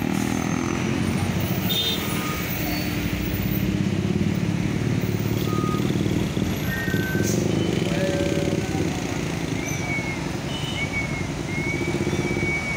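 Heavily loaded diesel trucks labouring slowly uphill, a continuous deep, pulsing engine rumble as one after another passes.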